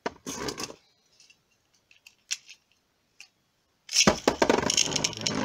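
A Beyblade Burst top is picked up from a clear plastic stadium with a short clatter, and a few small clicks follow as it is readied on the launcher. About four seconds in comes a sudden loud launch from a Hasbro launcher, and the top spins and grinds against the plastic stadium floor.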